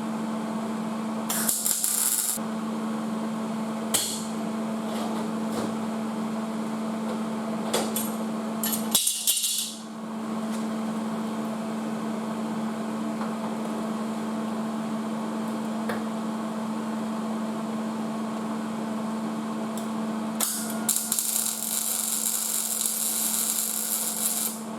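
MIG welder laying short welds on steel sheet metal, crackling and hissing in separate bursts: two short ones, then a longer one of about four seconds near the end. Under the welding runs a steady machine hum.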